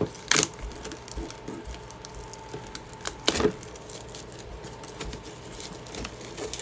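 Hands handling a cardboard Pokémon Elite Trainer Box: two short scrapes, one right at the start and one about three seconds in, with light ticks and taps between.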